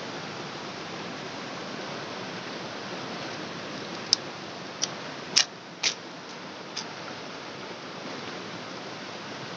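Shallow river flowing over rocks, a steady rushing hiss. About halfway through come five short, sharp clicks in quick succession.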